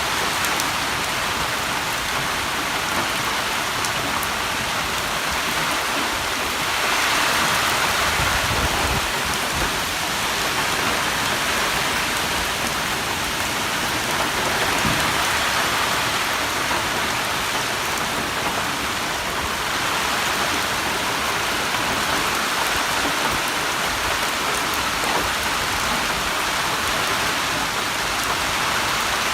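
Heavy monsoon rain pouring steadily in a storm, swelling louder briefly about seven seconds in.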